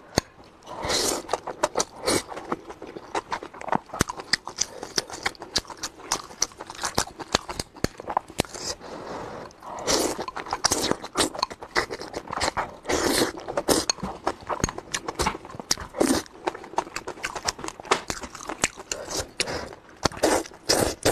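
A person eating noodles close to the microphone: repeated slurps and wet chewing with many small mouth clicks, coming in uneven bursts.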